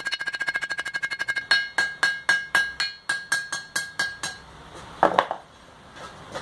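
Blacksmith's hammer striking hot steel on an anvil, the anvil ringing with each blow. Quick light taps come about ten a second for the first second and a half, then heavier blows about four a second until past four seconds. Two sharp knocks follow near five seconds as the hammer is set down on the anvil.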